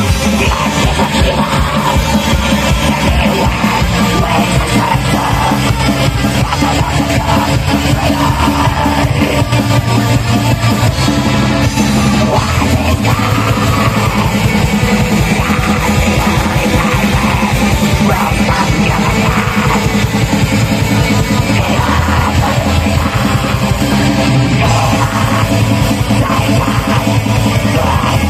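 Live metal band playing at full volume: distorted guitars and drums in a dense, unbroken wall of sound, with shouted vocals over it.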